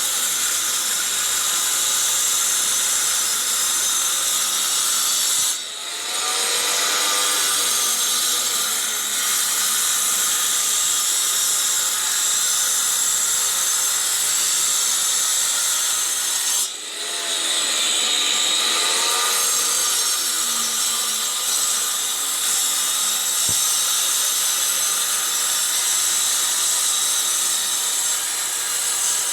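Power grinder cutting PPR plastic pipe: a steady, loud, high-pitched cutting noise. It drops off briefly twice, about six and seventeen seconds in, and each time the pitch wavers as it picks back up.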